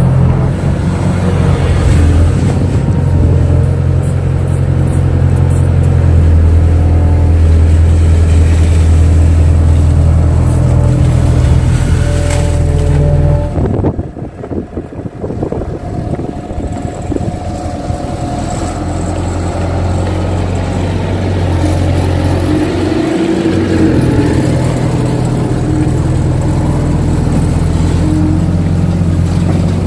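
Kato HD512E crawler excavator's diesel engine running with a steady low drone. About halfway through the engine note drops away and it goes quieter for a few seconds, then the drone builds back up to its working level.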